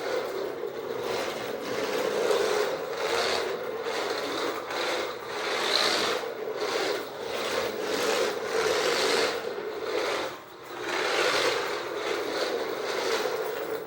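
Small 1/24-scale 3D-printed RC trike running, its tiny electric motor and plastic drivetrain giving a rough, rasping whir that rises and falls with the throttle and drops briefly about ten seconds in.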